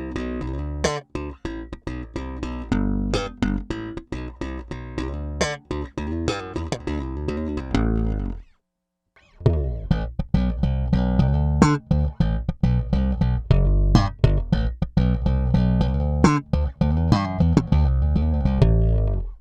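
Peavey T-40 electric bass played slap style: a fast run of thumb slaps and popped strings with a bright percussive attack over a deep low end. The playing stops for about a second just after eight seconds in, then a second phrase follows.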